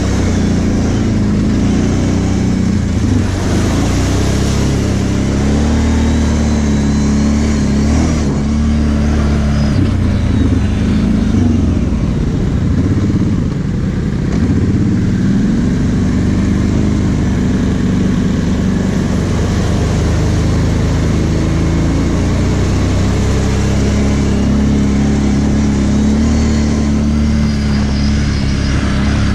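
Kawasaki KVF 750 Brute Force ATV's V-twin engine running under way on a dirt trail, its pitch rising and falling with the throttle.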